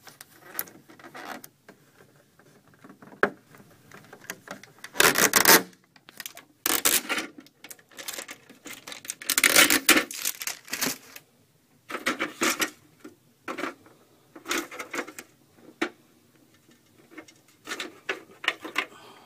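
Packaging being handled and pulled off a new appliance during unboxing: irregular bursts of rustling and scraping, the loudest about five and ten seconds in.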